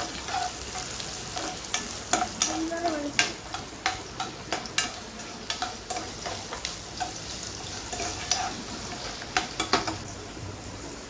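Chopped onions and curry leaves frying in oil in a nonstick kadai, with a faint sizzle under irregular scrapes and taps as they are stirred against the pan. The stirring stops about ten seconds in, leaving only the sizzle.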